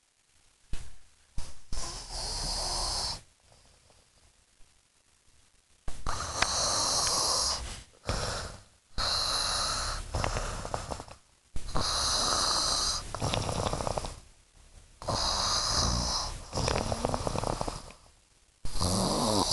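Snoring during sleep: a run of rasping snores, each lasting a second or two, with short quiet gaps between breaths. The first few seconds are quieter, and then the snores come steadily.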